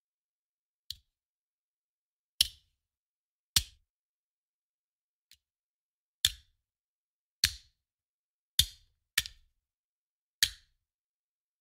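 Handgun magazine thrown down, landing with a sharp knock each time: nine separate throws spaced irregularly about a second apart, two of them faint.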